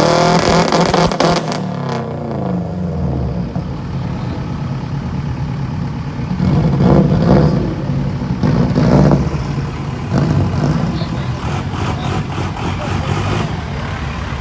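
Car engine revving hard, its pitch falling away over the first couple of seconds as it eases off; more short revs follow about seven and nine seconds in.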